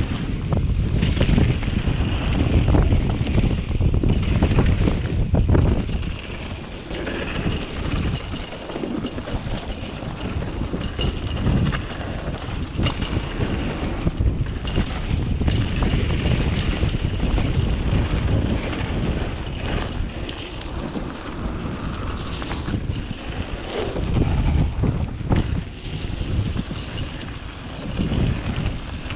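Wind buffeting the microphone over the wash of ocean surf, strongest for the first few seconds and again briefly later on.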